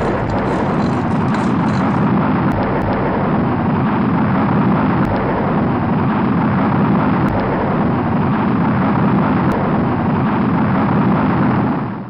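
A rocket exploding on its launch pad: a loud, steady, deep roar of blast and burning.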